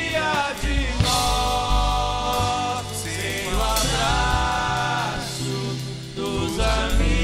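Live band music: several voices singing together in held harmony over acoustic guitar, strings, bass and drums.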